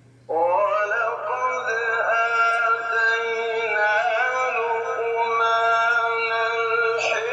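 Music with a sung, ornamented melody, starting suddenly a moment in and carrying on steadily.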